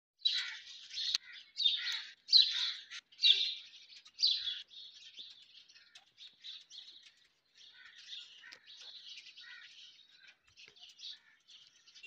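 Indian ringneck parakeets calling: five loud calls about a second apart, then softer, quicker chirping and chattering for the rest of the time.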